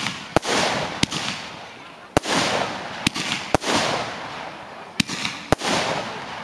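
Fireworks shooting gold glittering stars in quick succession: seven sharp reports at uneven intervals of about half a second to a second, each followed by a fading hiss.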